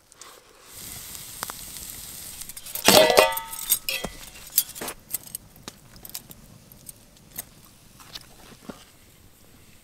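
A steady hiss, then metal cookware clanking with a brief ringing about three seconds in, followed by a scattering of small clicks and knocks.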